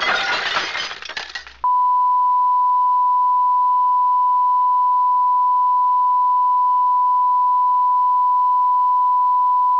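A loud burst of rustling, scraping noise, then about a second and a half in a steady, pure electronic test tone starts abruptly and holds unchanged, like a continuous beep.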